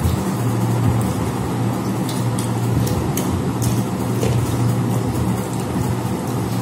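A steady low hum runs throughout, with faint scattered clicks and smacks of people eating by hand from metal plates.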